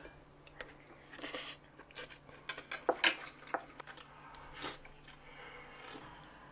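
Close-up eating sounds from a beef-intestine hotpot meal: irregular chewing with several sharp clicks of cutlery against the dishes.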